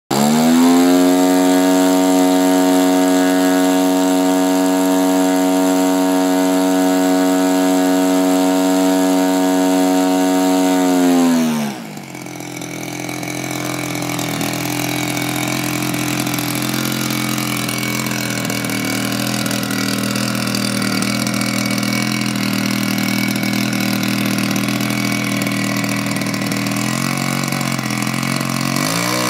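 Zenoah ZG62 62cc single-cylinder two-stroke petrol engine of a giant-scale RC Corsair model on a ground run: it revs up to a steady high throttle for about eleven seconds, is throttled back sharply to idle, and idles for the rest, with the revs starting to climb again at the very end.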